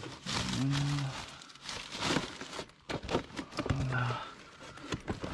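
Rustling, crinkling and knocking of junk being handled and shifted in a curbside hard-rubbish pile, in a run of short, irregular bursts and clicks.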